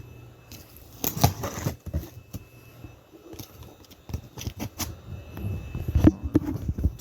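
Packing tape on a cardboard box being cut open with a blade, with irregular scraping, rustling and knocks of cardboard. The loudest knocks come about a second in and again near the end.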